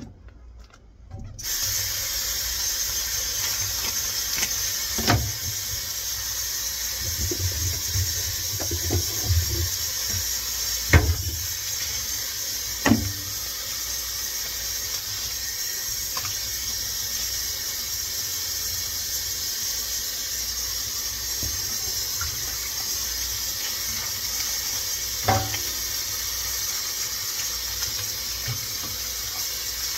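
Kitchen faucet running steadily into a stainless steel sink, the water turning on about a second and a half in. A few sharp knocks sound from handling in the sink.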